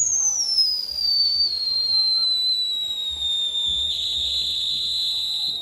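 Whistling firework on a burning castillo fireworks tower: one long, high whistle that falls in pitch over the first few seconds, then holds steady and cuts off suddenly near the end.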